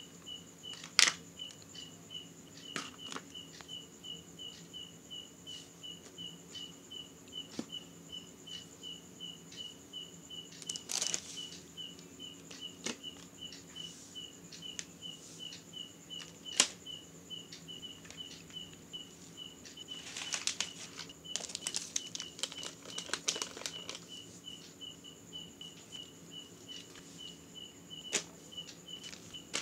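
Grocery packages set down and handled on a tiled floor: a few sharp knocks, and plastic packaging crinkling for a few seconds past the middle. Under it runs a steady, evenly repeating high chirp.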